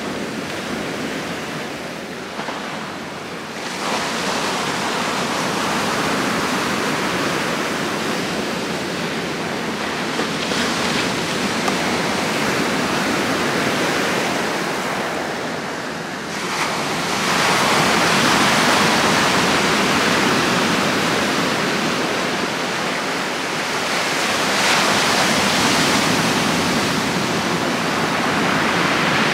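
Heavy surf on a shore at high swell, the wash of the waves swelling louder in several surges, most strongly a little past halfway through.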